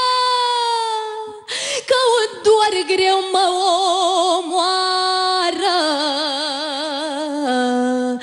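A woman singing a Romanian folk lament on sustained vowels, with no words. A long held note sags slightly in pitch, breaks off briefly about a second and a half in, then gives way to ornamented, wavering lines with vibrato, and drops to a low held note near the end.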